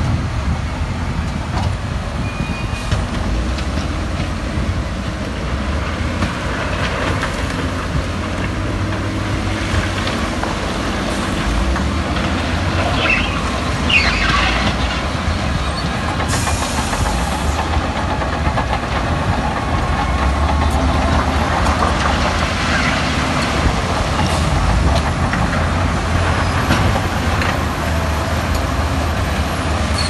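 Heavy diesel construction machinery running and working, a steady low engine rumble with a few short high squeals about 13 to 14 seconds in.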